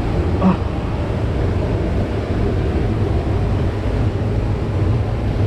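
Steady, deep rushing roar of a waterfall's falling water.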